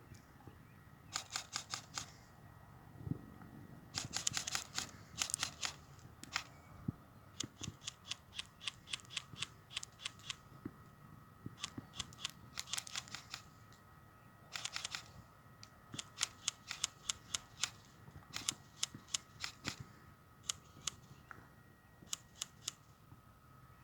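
Airsoft guns firing: bursts of sharp, rapid shots with short pauses between volleys, over a faint steady high hum.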